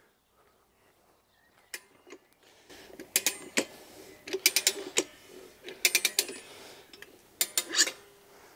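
Metal clicking and clanking of a Rabaconda manual motorcycle tire changer as its steel lever is worked and lifted off the wheel hub. The sound comes in about five short rattling bursts spread over several seconds.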